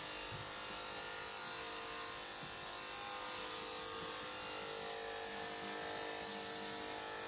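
Small cordless pet hair trimmer running with a steady electric buzz while clipping a dog's coat.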